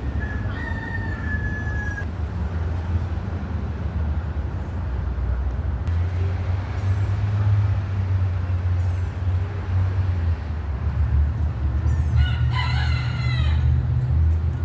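A rooster crowing once near the end, a call of about a second and a half, over a steady low rumble, with faint high chirps.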